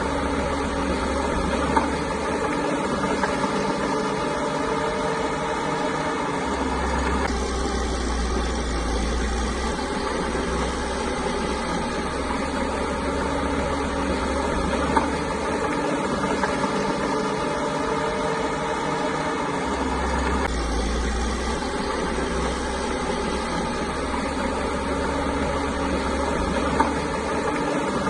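Caterpillar bulldozer's diesel engine running steadily, its deep rumble swelling for a few seconds twice as it works, with a few brief knocks.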